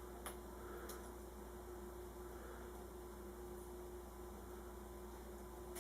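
Steady low electrical hum with a faint steady tone above it. A few faint clicks come in the first second and again near the end.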